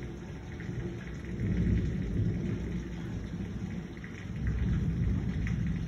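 Rolling thunder rumbling deep and low, swelling about a second and a half in and again near the end, over steady heavy rain.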